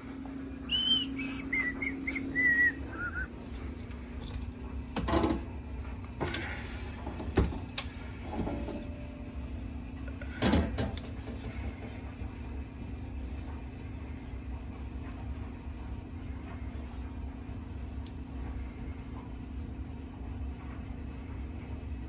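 Footsteps and several knocks and clunks, about four of them between five and eleven seconds in, over a steady low hum. A short high wavering squeak falls in pitch about a second in.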